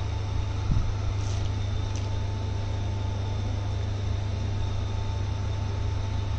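Steady low electric hum with a faint high-pitched tone above it, typical of the winch's single-phase electric motor running.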